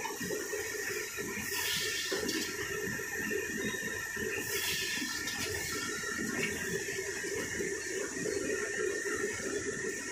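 Full-auto plastic-film facial tissue packing machine and its conveyors running: a steady mechanical clatter and hum with a high whine over it. Two short hissing bursts come about a second and a half in and again about four and a half seconds in.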